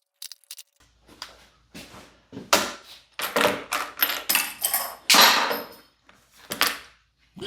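Irregular clatter and knocks of metal parts and tools being handled while the recoil starter and cover come off a small four-stroke outboard motor, including a part being dropped.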